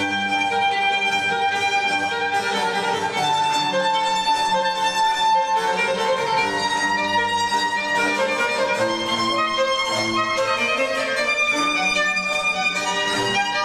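Recorded instrumental music with bowed strings prominent, played back from vinyl on a Clearaudio Statement turntable through floor-standing loudspeakers in a listening room.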